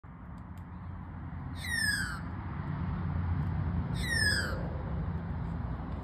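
Australian magpie giving two short calls about two seconds apart, each sliding downward in pitch, over a steady low rumble. The magpie is calling its mates in.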